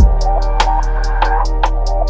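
Background music with a steady drum beat, about four strikes a second, over a held bass note.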